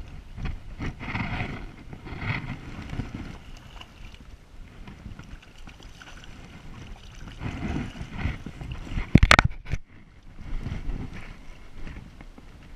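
Hooked brown trout splashing at the water's surface beside a landing net, in uneven bursts. A loud knock about nine seconds in.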